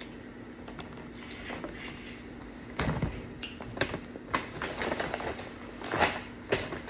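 Takeout food packaging being handled: a run of short rustles and sharp clicks, starting about halfway through.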